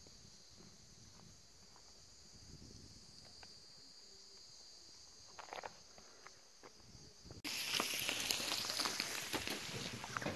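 Outdoor bush ambience: a faint steady high insect drone with a few light clicks, which switches suddenly about seven seconds in to a louder, denser high chorus of insects full of small clicks and ticks.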